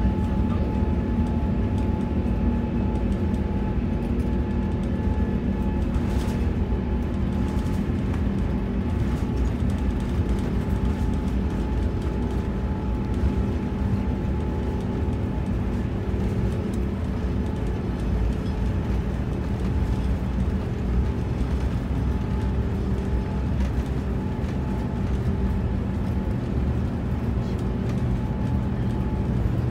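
Cabin noise inside an Airbus A350-900 rolling along the runway: a steady rumble from the engines and wheels, with a constant hum above it.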